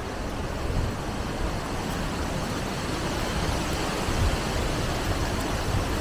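Wind blowing through the forest trees, a steady rushing noise, with low gusts buffeting the microphone.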